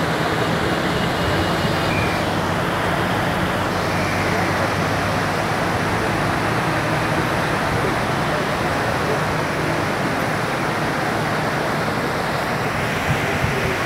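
River water rushing over boulders and through rapids, a steady, even rush, with a low hum of road traffic underneath.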